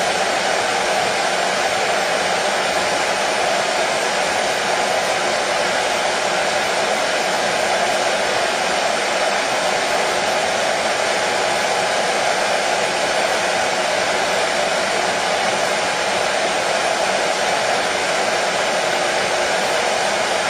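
Hair dryer running steadily: an even, unchanging rush of blown air and motor hum, strongest in a mid-pitched band.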